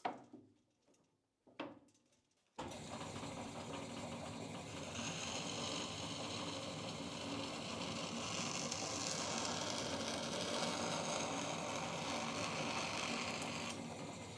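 A 1957 DoAll 16-inch metal-cutting bandsaw running at its slow gear speed and sawing through a piece of wood, with a steady machine noise that starts suddenly about two and a half seconds in. The rebuilt gearbox stays in gear through the cut.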